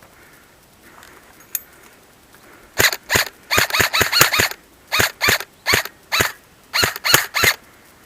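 An animal giving a rapid series of short, harsh calls, about fourteen in uneven groups over some five seconds.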